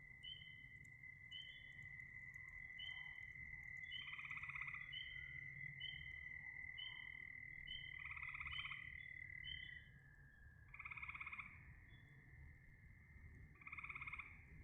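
Frogs calling: short, high chirping notes repeating about three every two seconds, and a louder pulsed, rattling croak four times, every three to four seconds, over a steady high trill.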